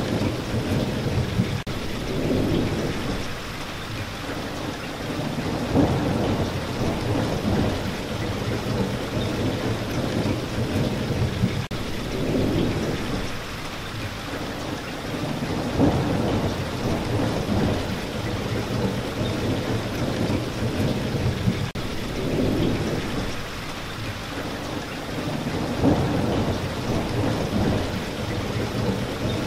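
Steady heavy rain with rolling thunder, low rumbles swelling and fading every few seconds.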